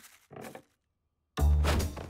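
Cartoon soundtrack: a click and a short sound, then a moment of dead silence, then loud music with heavy low notes cutting in just past halfway.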